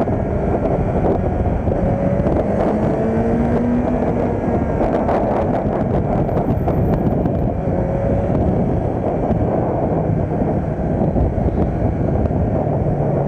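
Kawasaki Z900's 948 cc inline-four engine running under way, its pitch climbing a few times as the bike accelerates, with wind rushing over the microphone.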